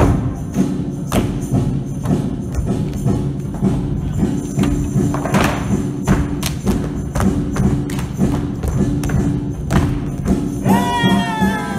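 Dance music with a steady beat, thudding percussion and low repeating notes. A brief gliding melodic line comes in near the end.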